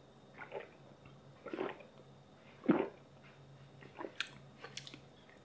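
A person gulping down a thick drink: three swallows about a second apart, the third the loudest, then a few faint clicks.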